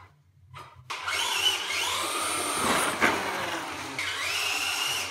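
Electric motor and gears of an ECX Torment 1/10 RC stadium truck whining as it accelerates and slows, rising and falling in pitch. The truck runs on a concrete floor, with a sharp knock about three seconds in. Nearly silent for the first second, before the motor starts up.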